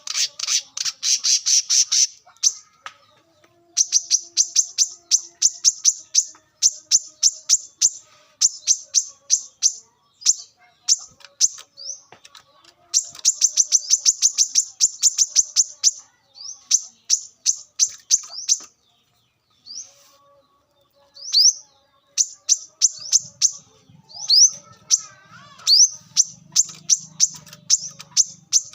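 Brown-throated sunbird (kolibri kelapa) singing: rapid runs of sharp, high chirps, several a second, broken by short pauses.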